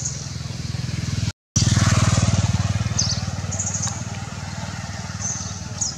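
A motor engine running steadily, with a low pulsing hum that cuts out for a moment about a second and a half in and comes back louder. Short high chirps recur over it.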